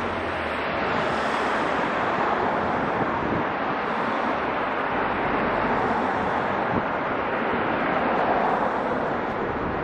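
Steady rushing outdoor noise with slow swells in loudness, with no distinct events in it.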